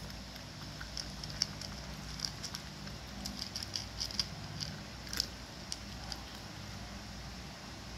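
Cats chewing dry kibble: a scatter of small, irregular crunches and clicks, several a second, thinning out after about six seconds.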